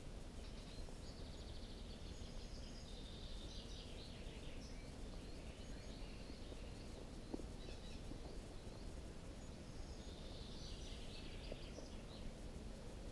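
Small songbird twittering: quick, high stuttering chirps in one bout over the first several seconds and another near the end, over a faint steady low rumble.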